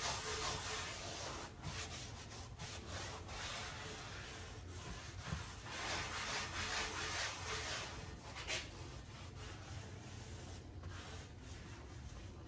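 Paper towel rubbing back and forth over the oiled surface of a cast iron skillet in steady scratchy strokes, wiping away the excess seasoning oil, with a light tap about eight and a half seconds in.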